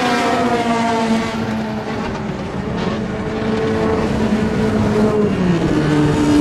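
Street-legal racing cars' engines running hard at high revs on the circuit. The pitch sinks about five seconds in and climbs again near the end.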